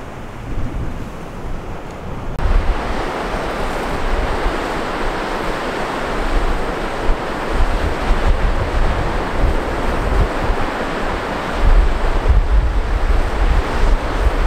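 Grand Falls of the Little Colorado River running muddy: a loud, steady rush of water pouring over stepped sandstone ledges, which comes in about two seconds in. Wind buffets the microphone throughout, gusting harder near the end.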